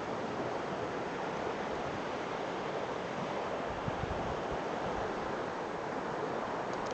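River rapids rushing in a steady, even roar of white water, with a few low gusts of wind on the microphone near the middle.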